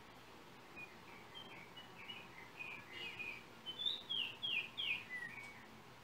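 Yellow oriole singing: a phrase of clear whistled notes starting about a second in, growing louder toward several downward-slurred whistles near the end, over a steady hiss.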